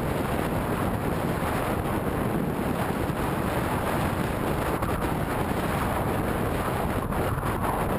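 Wind rushing over a helmet-mounted action camera's microphone while cycling: a steady buffeting noise with no let-up.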